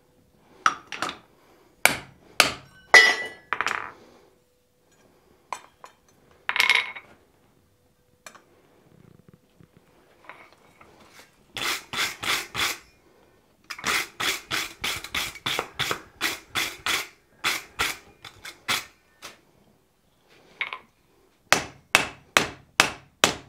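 Hand hammer striking a hot wrought-iron hammer head on a steel anvil: a few scattered blows, a pause, then runs of quick, even blows at about four a second. These are finishing blows at a lower heat that smooth the surface and knock off forge scale.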